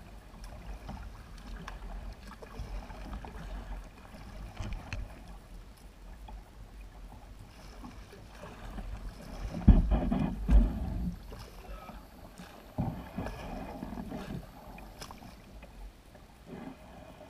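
Pelican kayak being paddled slowly through shallow, weedy water: paddle dips and splashes with small scattered knocks. There are two heavy thumps on the hull about ten seconds in and another knock a few seconds later.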